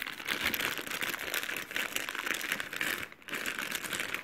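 Clear plastic bag wrapped around a coiled cable crinkling as it is squeezed and turned in the hand, with a brief break a little after three seconds in.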